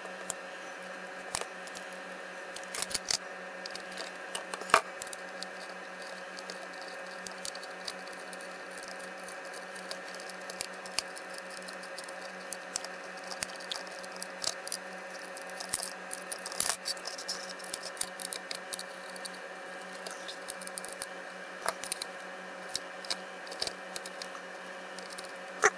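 Small clicks, taps and scrapes of a metal laptop heat sink with copper heat pipes being handled and seated onto a video card, one sharper click about five seconds in, over a steady background hum.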